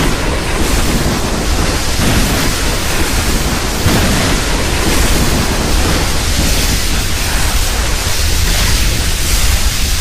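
Custom King Ghidorah sound effect: a loud, steady rushing noise with no pitch, like wind or surf, and no roar in it.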